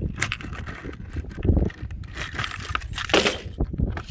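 Metallic clinks and knocks from handling a swing-out truck-bed tool box's latch and lid, with two louder knocks about one and a half and three seconds in.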